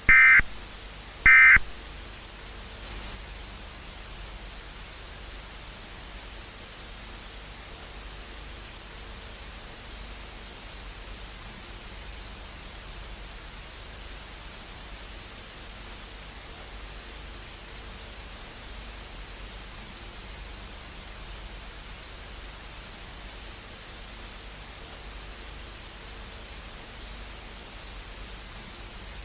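Two short bursts of Emergency Alert System digital data tones about a second apart near the start, the SAME end-of-message code that closes an alert, then steady static hiss.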